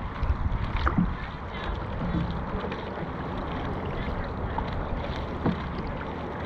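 Dragon boat under paddle: steady rush and splash of water, with wind buffeting the microphone and a couple of sharp knocks.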